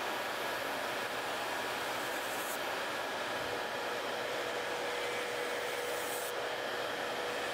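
Tabletop nail dust collector's fan running with a steady rush, together with the steady whine of an electric nail drill spinning a sanding band against a fingernail to grind off gel color. The whine grows a little stronger about halfway through.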